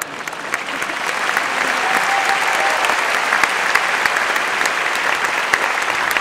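Audience applauding. The clapping swells over the first second and then holds steady.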